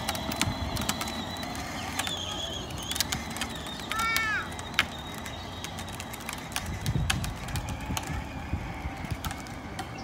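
A battery-powered ride-on toy Jeep towing a folding wagon across asphalt: a steady rumble of plastic wheels rolling, with many scattered rattles and clicks. There is a brief high-pitched call about four seconds in.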